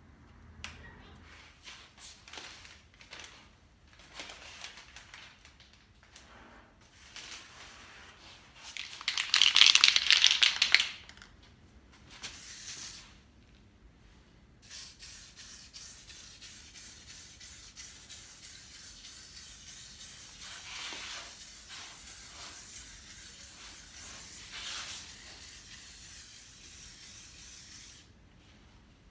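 Newspaper and tape rustling in short bits, a loud hissing burst a little before halfway, then a long steady hiss of black paint being sprayed over a masked-off lettering stencil.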